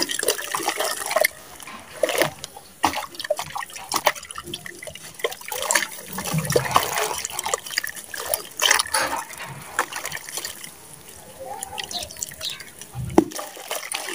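Wet mud and sand squeezed and crumbled by hand, with clumps and grit dropping and splashing into a basin of muddy water: irregular wet crackles, splats and trickles, with a couple of duller thuds.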